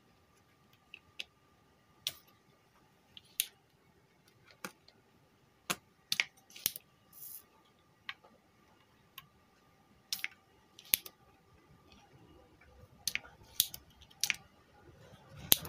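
Spring-loaded desoldering pump (solder sucker) being cocked and fired over and over, sharp clicks and snaps at irregular intervals, as solder is sucked off the leads of a damaged transistor to remove it from the power supply board.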